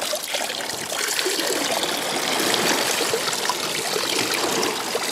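Water trickling and dribbling as it is poured out of a small plastic cup, a steady splashy hiss.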